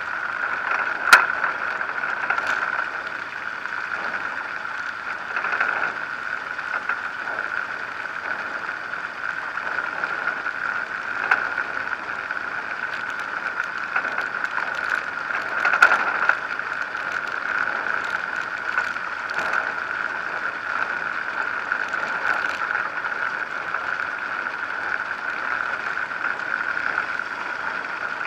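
Zenair 701 light aircraft's engine and propeller running steadily at low taxi power as it rolls along a dirt strip, with a few short knocks, the sharpest about a second in and again around halfway.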